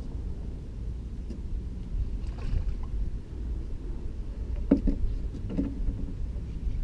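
Wind buffeting the microphone as a steady low rumble, with a couple of brief knocks about five seconds in.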